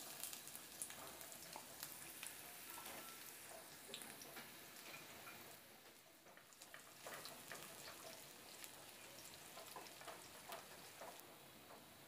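Sliced onions sizzling in hot oil in a nonstick frying pan, with scattered pops and the occasional stir of a wooden spatula. The sizzle starts as the onions go into the oil, which is the start of frying them down for beresta (crisp fried onions).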